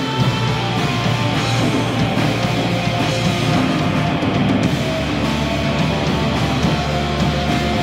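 Live rock band playing loud, guitar-heavy music over a full drum kit.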